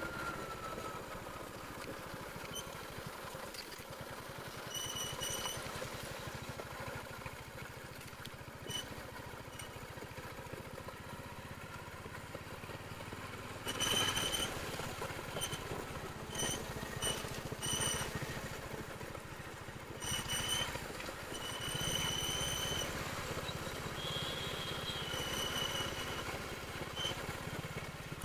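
Royal Enfield Hunter 350's single-cylinder engine running through its stock exhaust, with a brief louder surge about halfway through. Short, sharp high-pitched tones recur through the second half.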